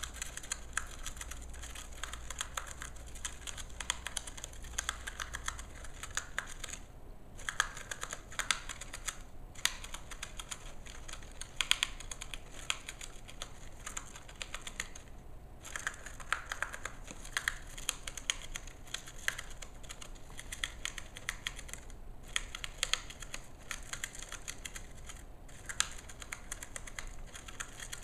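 Gerbil gnawing and shredding a cardboard toilet paper roll: fast, dense clicking of teeth biting through cardboard, broken by a few short pauses.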